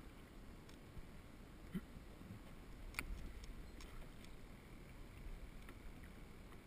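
Faint water lapping against a plastic kayak, with a few light clicks and knocks, the sharpest about three seconds in.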